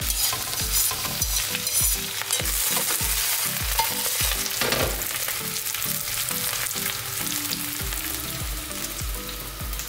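Baby spinach sizzling as it is sautéed in a hot stainless steel frying pan and turned with tongs. The sizzle starts suddenly and is strongest in the first few seconds, then eases a little.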